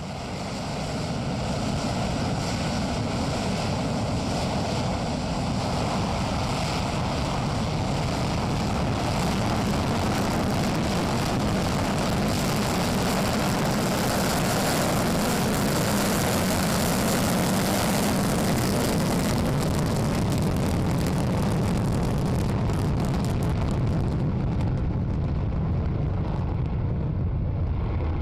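Jet engines of a B-1B Lancer bomber running at high power with afterburners lit, a steady, loud noise that covers lows and highs alike. The highest part of the noise thins out over the last few seconds.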